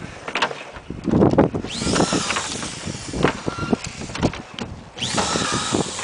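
Power drill driving screws through the fastening clips of an aluminum standing-seam roof panel into the deck: a long run of the drill starting just under two seconds in, and a second, shorter one about five seconds in, each with a whine that rises as the motor spins up. Knocks and taps on the metal come before the first run.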